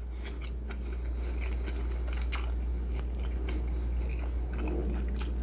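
Close-miked mouth sounds of someone eating pork and vegetable stew: irregular wet chewing with small crunches and clicks, one sharper click a little over two seconds in, over a steady low hum.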